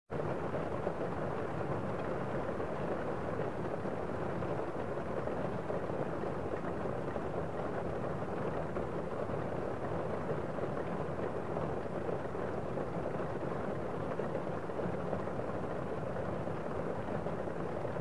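Heavy rain heard from inside a room: a steady, muffled hiss with little high end.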